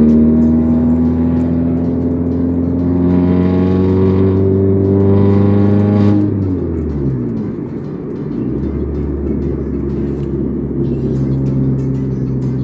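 Straight-piped Ford Fiesta Mk7 engine and exhaust heard from inside the cabin while driving. The exhaust note climbs steadily under acceleration for about six seconds, then drops away as the throttle is lifted or a gear is changed, leaving a lower, steady engine drone with road noise.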